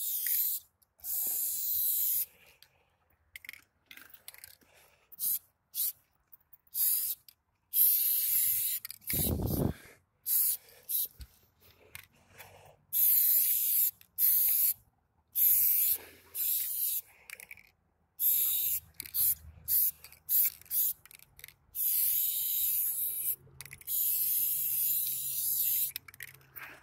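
Aerosol spray-paint can hissing against a concrete wall in repeated spurts, some short strokes and some held for about two seconds, with short pauses between them. About nine seconds in there is a brief low thump.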